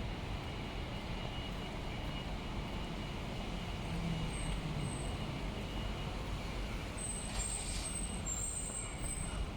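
Steady street traffic noise, a low rumble under an even hiss, with a brief high squeal near the end.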